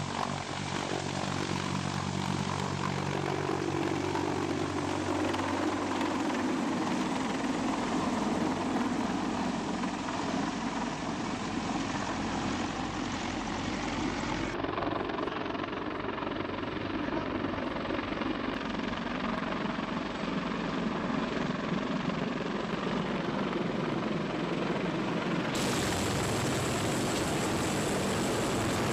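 Sikorsky CH-53 heavy-lift helicopter flying with a slung load: a continuous rotor and turbine rush with a low, steady rotor beat that fades after a few seconds as it moves away. Near the end it changes to a closer, hissier rush of rotor downwash from directly beneath a hovering CH-53.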